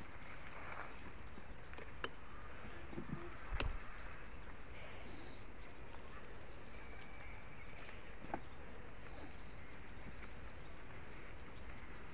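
Outdoor rural background with a few soft knocks and rustles as banana leaves are pressed down over the bananas in a metal cooking pot; the loudest knock comes about three and a half seconds in. Faint bird chirps sound in the background.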